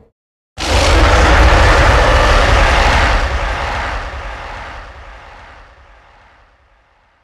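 A deep, loud giant-ape roar sound effect that starts suddenly about half a second in and slowly fades away over some six seconds.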